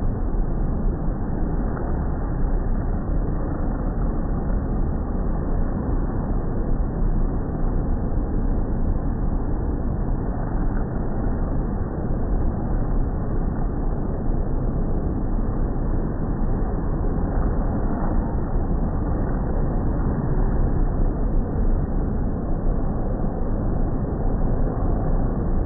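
Midget race car engines on a dirt track, slowed down with the slow-motion playback into a steady, dull, low rumble with no sharp sounds in it.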